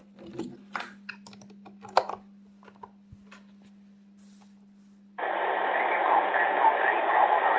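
A run of sharp clicks and taps from radio buttons and handling. Then, about five seconds in, a shortwave receiver's single-sideband audio switches on suddenly: steady static hiss with a weak, barely readable voice under it. A low steady hum runs under it all.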